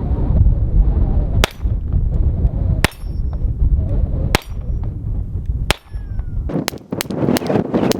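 Taurus TX22 .22 LR pistol firing at steel plates: four single shots about a second and a half apart, then a quick string of shots at about three or four a second near the end, with a light ring from the plates. Wind buffets the microphone through the first part.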